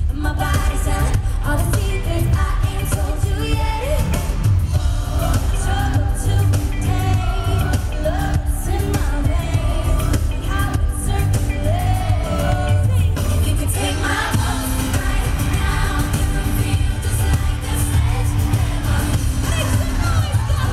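Live pop performance: female vocal group singing over a live band with heavy, steady bass, as heard from the audience.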